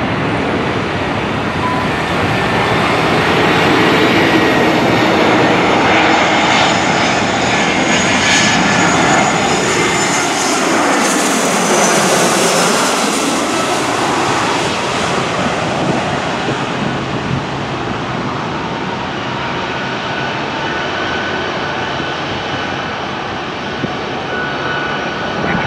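Jet airliner engines on landing approach passing low overhead with the landing gear down: the noise builds, peaks about ten to thirteen seconds in with a hollow sweep that falls and then rises in pitch as the plane goes over, then eases to a steadier, quieter engine noise.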